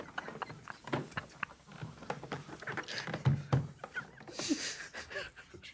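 Several men stifling laughter, with short breathy snorts and giggles, along with soft clicks and taps of playing cards being handled on a felt-covered table.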